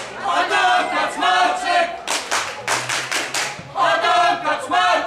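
Football supporters chanting in unison. A sung phrase gives way to a run of rhythmic handclaps about two seconds in, and the chant starts again near the end.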